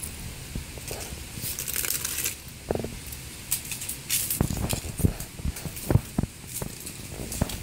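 Dry leaves crackling and rustling under Rhodesian Ridgeback puppies' paws in irregular short bursts, with a few soft thumps.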